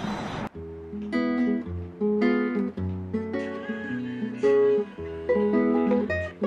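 Background music of plucked and strummed acoustic guitar chords, cutting in abruptly about half a second in.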